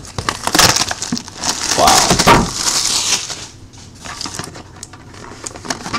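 Plastic shrink wrap crinkling and tearing as it is pulled off a sealed trading-card box, loudest in the first half, then lighter crackles and rustles.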